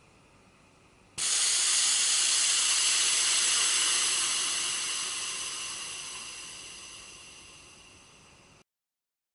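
Compressed air hissing through the air line and fitting of a Festo double-bellows pneumatic cylinder. It starts suddenly about a second in, holds steady for about three seconds, then fades gradually as the pressure evens out, and cuts off near the end.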